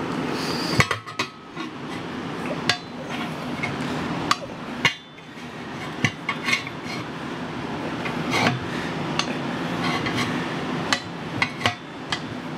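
Metal tire iron knocking, clinking and scraping against a steel ATV wheel rim as the second tire bead is pried off by hand. The strikes come irregularly, a few seconds apart, over a steady background hum.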